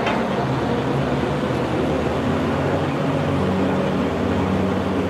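Steady background noise of an indoor ice rink: a constant low drone with no distinct events.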